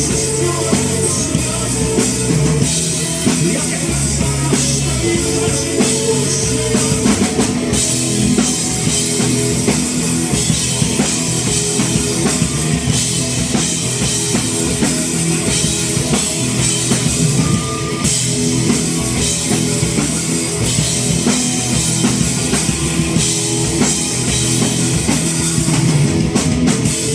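Live rock band playing an instrumental passage, with the drum kit prominent over bass and electric guitar.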